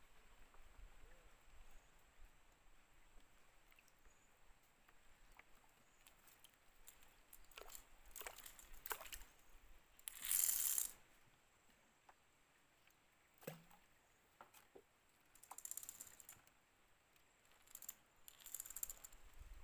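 Fishing reel and line being handled in a small wooden boat: scattered faint clicks with a few short hissing bursts, the loudest about ten seconds in.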